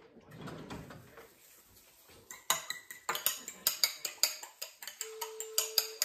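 Beaten egg being whisked with a utensil in a ceramic bowl. From about two seconds in, quick sharp clinks of the utensil against the bowl come about three to four a second.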